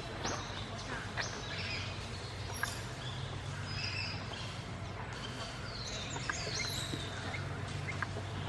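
Assorted birds chirping and calling: many short high chirps, a few brief held notes, and a couple of falling whistles about six seconds in, over a steady low hum.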